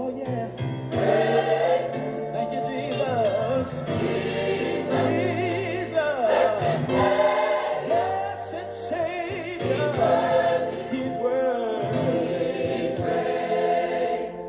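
Gospel choir singing: voices holding long notes, some with a wavering vibrato, over a steady low accompaniment.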